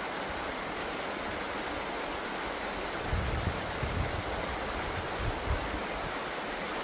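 Steady rushing noise of running water. From about three seconds in, a few brief low rumbling bumps sit under it.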